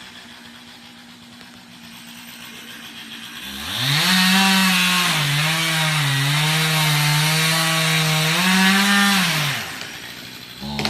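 Chainsaw idling, then opened up to full throttle about three and a half seconds in and cutting wood for about six seconds, its pitch dipping under load, before dropping back toward idle near the end.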